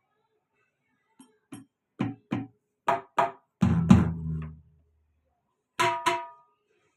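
Roland HandSonic electronic hand-percussion pads struck in quick pairs, giving about nine sampled percussion hits. One hit a little past the middle rings on with a low tone for about a second. The unit is one reported as giving low sound.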